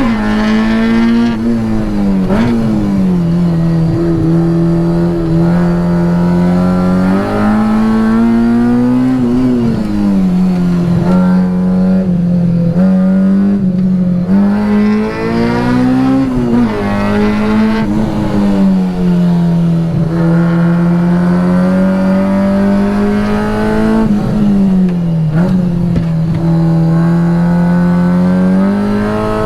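K20-swapped Honda Integra Type R's four-cylinder engine heard from inside the cabin under hard track driving. Its pitch climbs and then drops sharply about four times, with long stretches at steady pitch in between.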